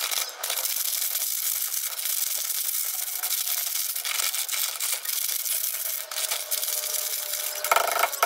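Plastic snack wrappers of graham cracker packs crinkling and rustling as they are handled and torn open by hand, a continuous papery crackle.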